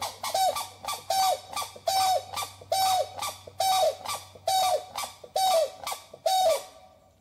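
An animal calling in an even series of short calls, about one a second, each ending in a falling note; the calls stop about a second before the end.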